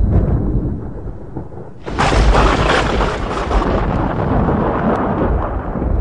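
Low rumble of wind on the microphone over stadium noise, then a sudden burst of crowd noise about two seconds in, cheering and clapping for a few seconds before it fades.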